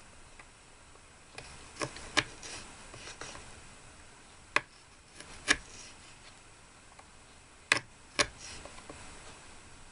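Light, sharp clicks and taps of small objects being handled, about six in all, coming roughly in pairs a few seconds apart.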